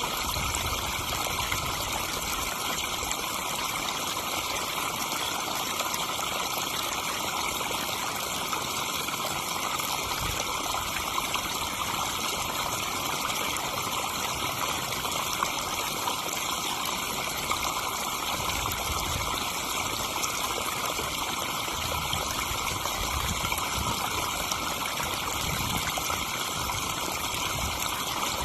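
Garden pond waterfall: water spilling and splashing steadily into the pond, a constant rush of running water.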